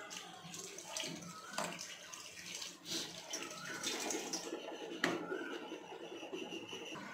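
A steel spoon stirring cooked, watery sago pearls in an aluminium pot: wet sloshing with a few sharp clinks of the spoon against the pot, the loudest about five seconds in.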